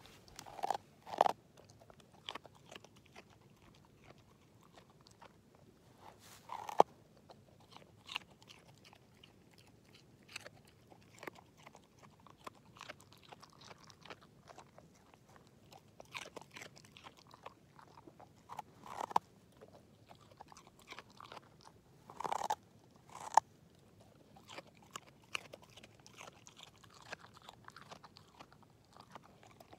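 English Setter chewing a raw carrot: irregular wet crunches and bites, with a few much louder crunches scattered through.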